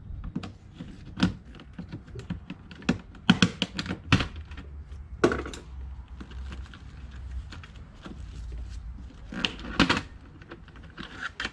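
Plastic interior trim and its retaining clips in a Ford Focus being pried and pulled loose by hand: irregular sharp clicks and knocks, loudest in clusters about three to four seconds in and again near ten seconds.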